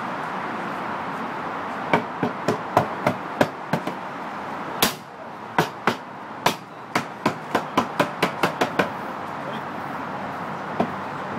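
Cooper's hammer knocking on the wooden head and rim of a whisky barrel: a run of about twenty sharp knocks, three or four a second with a short pause partway, then one last knock near the end.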